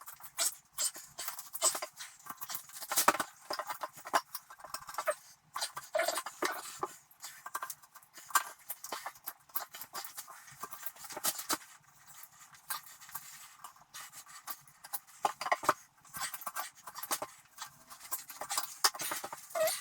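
Knife cutting through old caulk around the base of a toilet: irregular scratchy scrapes and light clicks.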